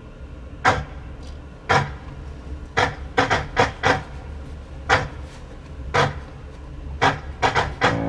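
About a dozen sharp taps or knocks at irregular intervals, with quick runs of three or four near the middle and near the end, over a steady low rumble.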